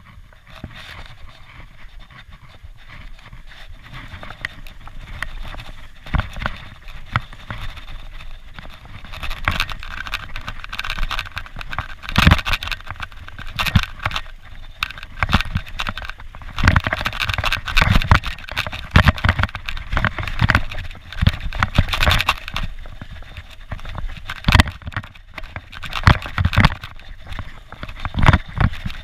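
Mountain bike riding fast down a dirt forest trail: tyres rolling over dirt and dead leaves, with frequent clatters and knocks from the bike over bumps. The riding gets louder and busier about ten seconds in as speed builds.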